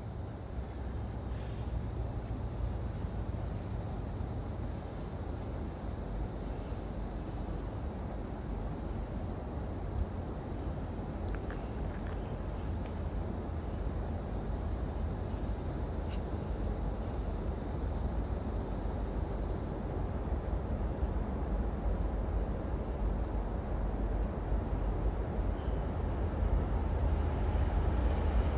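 Steady, high-pitched insect chorus, with the low rumble of an approaching CSX empty coal train building louder toward the end.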